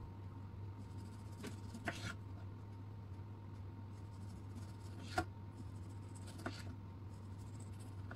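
Small kitchen knife slicing through a tomato and tapping the bamboo cutting board: a few short soft cuts and taps, the loudest about five seconds in, over a steady low hum.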